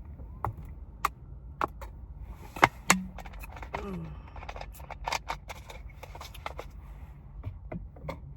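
A string of sharp clicks and taps, like small objects being handled, with a brief low sound about three seconds in whose pitch drops.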